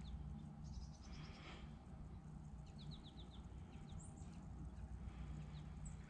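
Songbird calls over a steady low rumble: two quick trills of short descending notes, about a second in and again near three seconds, and a single high chirp about four seconds in.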